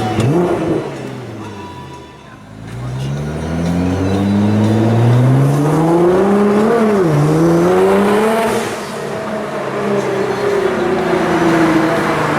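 Nissan GT-R's twin-turbo V6 through a titanium exhaust under hard acceleration. The engine note climbs steadily, drops sharply in a quick upshift about seven seconds in, climbs again, then falls away slowly as the car comes off the throttle.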